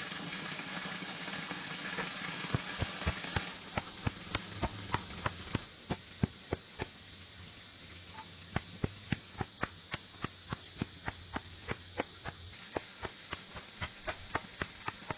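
A quick, even run of sharp taps, about three a second, in two stretches with a short break between. A steady hiss lies under the first few seconds.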